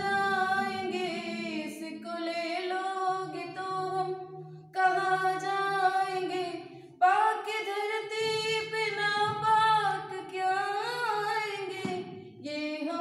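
A woman singing a Hindi patriotic song unaccompanied, holding long drawn-out notes, with short pauses for breath about five, seven and twelve seconds in.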